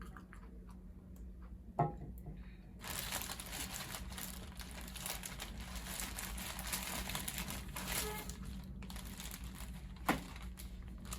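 Packaging crinkling as it is handled, a dense rustle lasting about six seconds, with a sharp tap shortly before it and another near the end.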